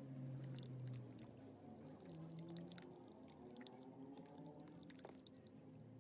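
Very faint background music: a low droning tone that slowly fades away, with a few faint ticks.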